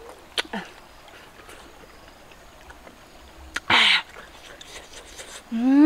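A woman eating a peeled boiled egg: two short, sharp breathy mouth noises, about half a second and about four seconds in, then a short vocal sound near the end whose pitch rises and falls.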